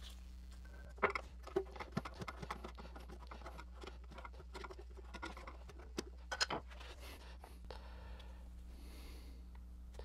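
Faint clicks, taps and scraping of a flat metal tool prying the lid off a metal can of two-part varnish, with the sharpest clicks about six seconds in.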